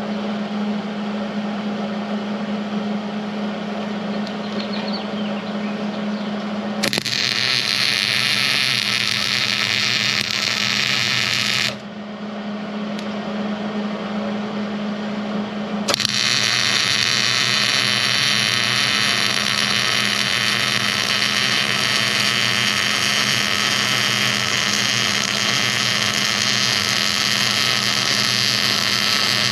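Electric arc welding on steel, with D-rings being welded to the inside wall of a roll-off bin: a steady crackling hiss from the arc over a constant low hum. The arc runs for about five seconds, stops for about four, then starts again and holds steady.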